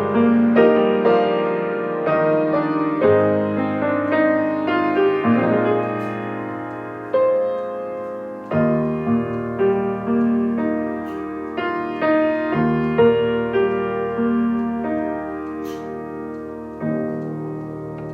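Solo piano playing a slow chordal prelude, each chord struck and left to ring as it fades.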